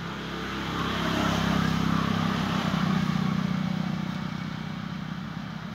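A motor vehicle passing on the road: its engine hum and tyre noise swell to a peak about two to three seconds in, then fade away.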